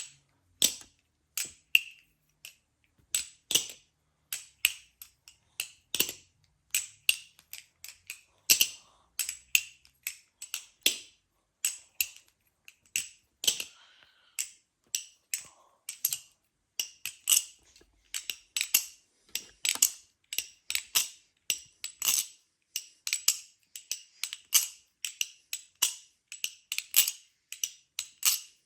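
Armed Shark balisong, a clone of the Glidr Co. Original 4, being flipped for a sound test: an irregular run of sharp, bright metal clicks and clacks as the handles swing and hit, often in quick clusters of two or three.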